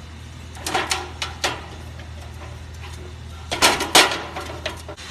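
Hard objects clattering and clanking, a few knocks about a second in and a louder cluster about three and a half seconds in, over a steady low hum.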